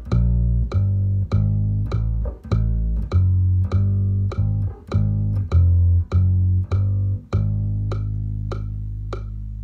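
Electric bass guitar played fingerstyle, one low note per click of a metronome ticking about one and a half times a second: a fretting-hand drill using the finger pattern 4-1-2-3. About seven seconds in, it settles on one long held note while the clicks keep time.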